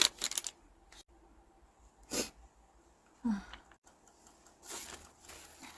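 A woman sneezes once, sharply, about two seconds in, a sneeze set off by a nasal swab in her nostril. A brief vocal sound follows about a second later, and a softer breath near the end.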